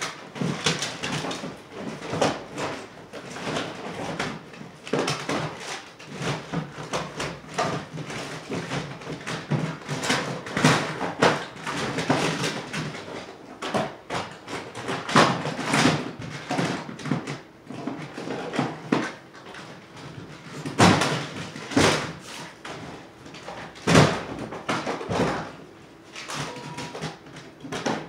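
Rummaging through a plastic storage tote: items being shifted and rustled, with repeated knocks and clatter against the plastic and two sharper thumps in the last third.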